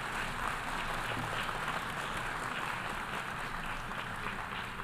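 Audience applauding: steady clapping of many hands, getting a little quieter near the end.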